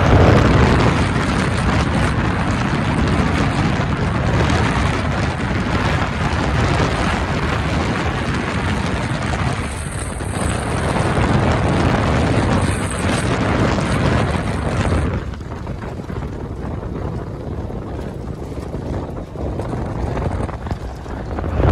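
Wind rushing over the microphone from an open-roof safari vehicle moving along a gravel road, with the vehicle's engine and tyres on gravel running underneath. The rush eases about fifteen seconds in and picks up again near the end.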